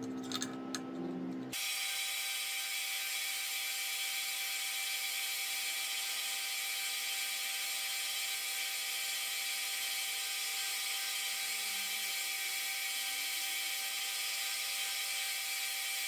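Belt grinder running steadily while a twist drill bit is sharpened against its abrasive belt; the even machine sound comes in abruptly about a second and a half in, after a few faint clicks.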